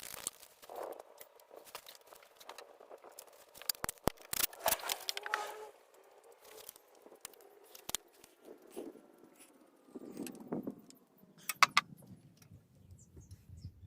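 Metal tools and small metal parts clicking, clinking and scraping in irregular bursts as a carburettor is worked off a small mower engine.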